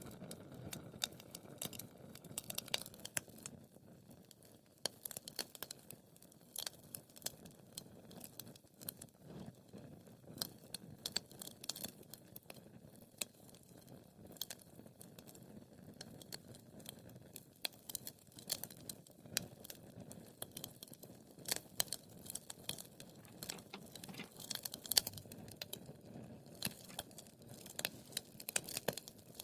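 Wood fire crackling, with dense irregular pops and snaps over a low rumble of flames; a few louder snaps come close together near the end.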